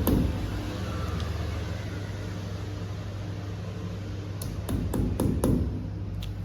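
A burst of sharp clicks and knocks at the start, then about five more in quick succession a little over four seconds in, over a steady low hum.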